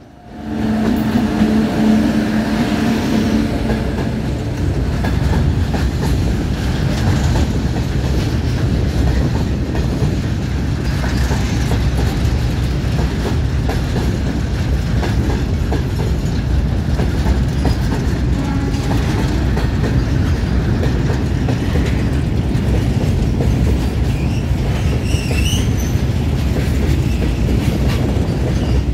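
Indian Railways electric freight locomotive passing close by with a steady hum for the first few seconds. A long rake of covered box wagons follows, rolling past with a steady rumble and the clickety-clack of wheels over rail joints. A brief high squeal comes near the end.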